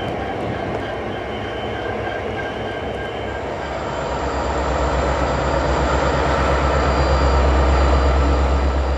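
Canadian National SD60 diesel locomotives running with a freight train. The low engine rumble builds from about four seconds in and is loudest near the end.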